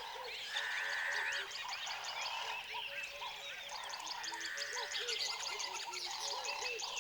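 Forest ambience with many birds chirping and calling over one another, in short repeated notes and trills.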